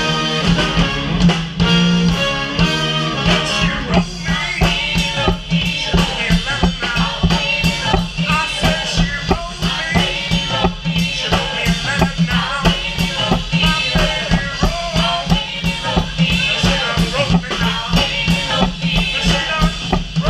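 Live band playing with a steady drum-kit beat, a strong bass line, saxophone and singers.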